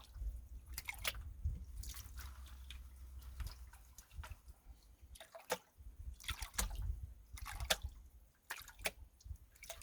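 Water sloshing and dripping in a Garrett Super Sluice gold pan as gravel is washed down, in irregular splashes.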